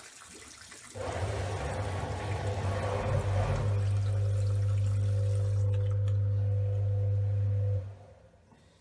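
Water running from a bathroom tap with a loud steady low hum from the plumbing. It comes on abruptly about a second in and is shut off abruptly near the end.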